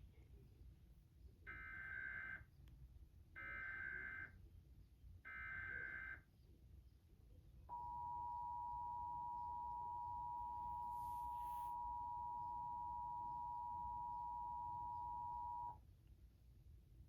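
Emergency Alert System test: three short bursts of the screechy SAME digital header, each about a second long, then the EAS two-tone attention signal, a steady dual tone held for about eight seconds that cuts off sharply.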